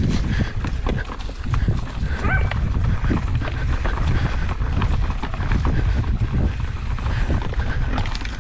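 Mountain bike rolling over rough trail: a dense run of knocks and rattles from the tyres and frame, over wind rumble on the microphone.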